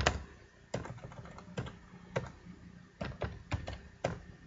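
Computer keyboard keys being pressed one at a time at an uneven, unhurried pace, a sharp click about every half second.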